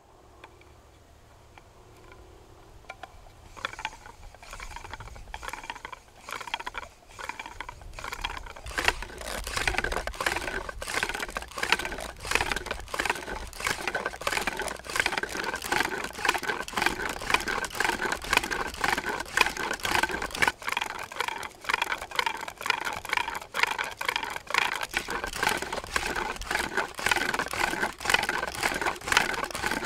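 Wooden spindle of a pump drill grinding and squeaking in the notch of a wooden hearth board, in quick repeated strokes as the drill is pumped. It starts faint and grows louder over the first nine seconds or so as the pace picks up. This is the friction stage of making fire, with the spindle charring the hearth and filling the notch with dark dust.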